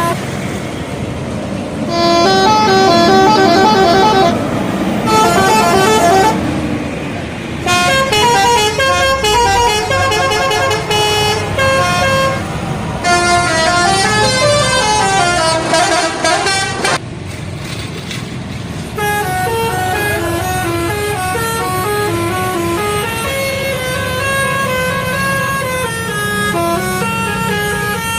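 Bus telolet horns, multi-tone musical air horns, playing quick stepped melodies of short notes, with a bus engine rumbling underneath. The tunes are loudest through the first half, break off briefly about two-thirds of the way in, then a softer tune carries on.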